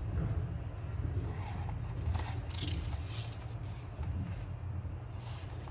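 Picture-book pages being turned by hand: paper rustling and sliding in a few soft swishes, over a steady low hum.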